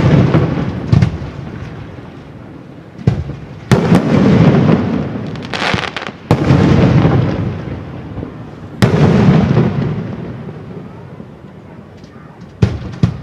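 Aerial fireworks shells bursting one after another, a sharp boom every few seconds, each trailing off in a long rumble, with a patch of crackling around the middle.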